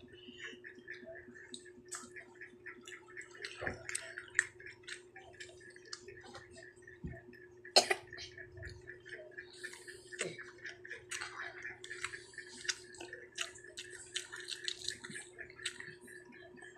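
Children eating with their hands: many small irregular clicks and smacks of chewing and of fingers working rice on the plates, over a steady hum, with one sharp knock about eight seconds in.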